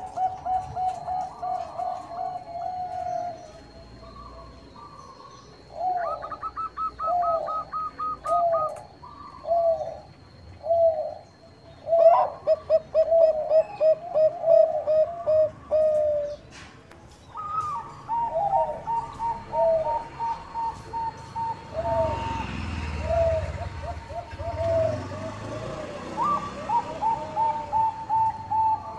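Zebra dove (Bangkok-strain perkutut) cooing: repeated phrases of quick, pulsing notes broken by short pauses, some pitched higher than others. A faint steady high tone sounds underneath, and a low rumble comes in near the three-quarter mark.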